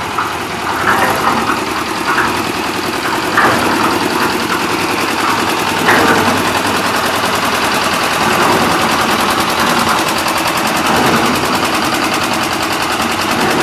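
Engine of a concrete mixer with a hydraulic hopper running steadily with a fast, even chugging, with a few brief metallic clatters over it.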